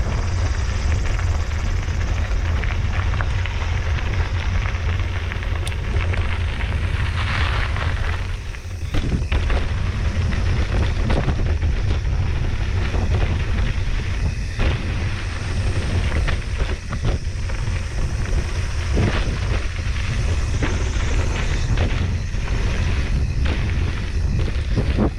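Mountain bike riding over a dirt trail: tyres rolling and the bike rattling, with frequent knocks from bumps, under steady wind buffeting on the microphone. The noise dips briefly about eight seconds in.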